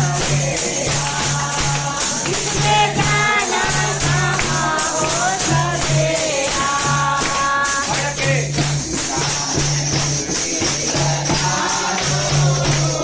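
Devotional kirtan singing at a home gathering: voices singing a bhajan over tambourine and jingling hand percussion, with a steady low drum beat.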